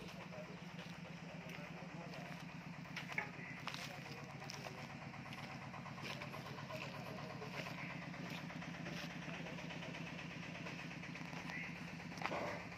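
A small engine running steadily at an even, low pitch, with a few sharp knocks about three seconds in.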